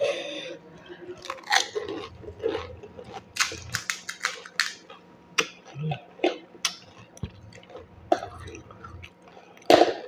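Close-up crisp crackling and crunching of golgappa (panipuri): hollow fried puri shells being cracked open and broken, mixed with chewing. The crackles come in an irregular run of short sharp snaps, one of the loudest near the end.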